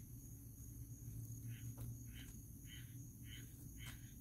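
Crickets chirping faintly, about two chirps a second, over a steady high-pitched insect trill and a low hum, with a couple of faint clicks.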